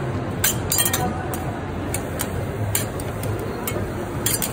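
Metal spatulas clicking and scraping on a teppanyaki steel griddle: scattered sharp clinks over a steady murmur of background chatter.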